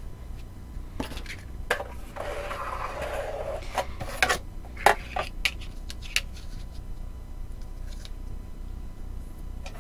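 Plastic die-cutting plates, a metal circle die and card being handled and set in place: a string of sharp clicks and taps, with a rubbing scrape lasting about a second and a half from about two seconds in.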